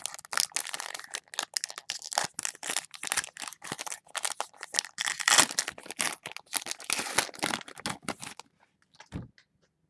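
A pack of football trading cards being torn open, its wrapper crinkling and tearing in quick irregular crackles, loudest about halfway through. It stops about a second before the end, apart from one low thud.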